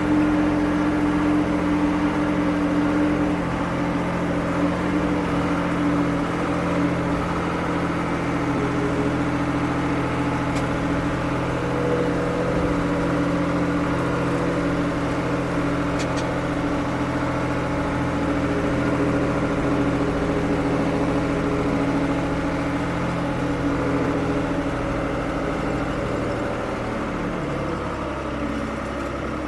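Diesel engine of a 1975 Ford 550 backhoe running steadily at an even speed, its pitch shifting slightly a few seconds in and again near the end.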